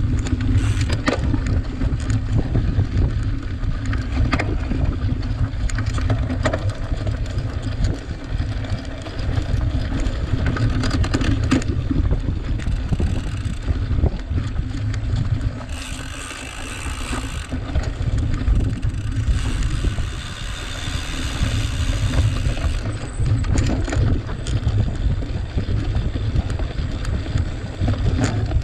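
Wind buffeting the microphone over the rumble and rattle of a cyclocross bike riding over rough, dry ground, with frequent sharp clicks and knocks. Two stretches of higher hiss come in about halfway through and again a little later.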